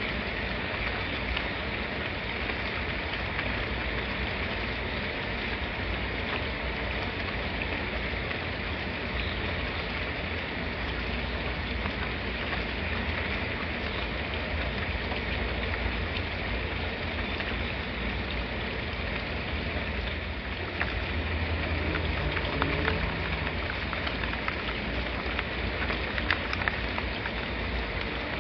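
Steady rainfall, an even hiss with scattered drop ticks, getting slightly heavier about two-thirds of the way through.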